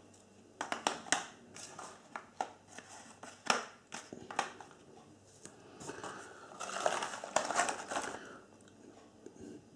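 Small cardboard firework packets being handled and set down on a tile floor, with a series of sharp taps and clicks. About six and a half seconds in, the packaging in the cardboard box rustles and crinkles as the next items are rummaged for.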